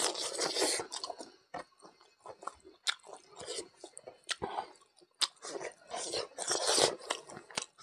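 Close-miked chewing of a mouthful of mithun intestine and rice: wet smacks and light crunches in irregular bursts, loudest near the start and again about seven seconds in.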